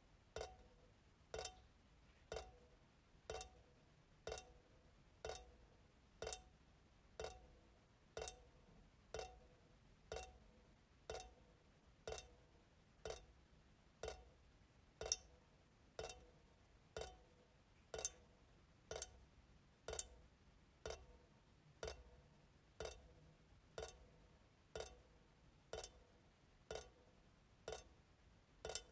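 Kitchen faucet dripping steadily into the sink, about one drop a second, each drop a short plink.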